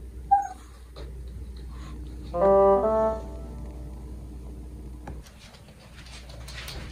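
A short comic brass-horn sound effect: two held notes, the second a little higher, together lasting under a second. Some light rustling and clicks come near the end.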